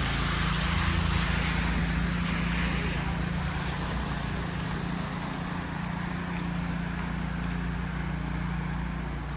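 Street traffic: a vehicle engine running with a steady low hum, and a hiss of tyres on slush that is strongest for the first few seconds and then fades.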